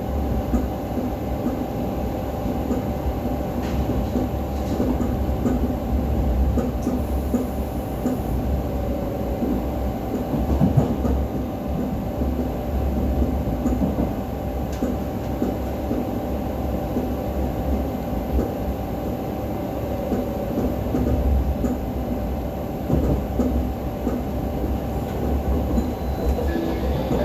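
Electric commuter train running at speed, heard from inside the carriage: a steady low rumble of wheels on rails under a constant hum, with a few faint knocks from the track.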